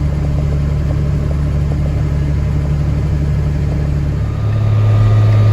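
Farm vehicle's engine running steadily; about four seconds in its note changes and gets a little louder.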